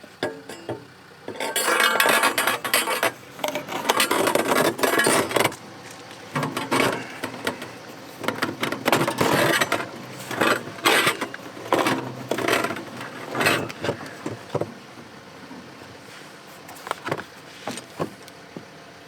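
Hands working at a diesel heater install, pressing a silicone seal into place: rustling and rubbing with light clicks and clinks of the fittings. It is busiest a couple of seconds in and thins to a few scattered clicks in the last few seconds.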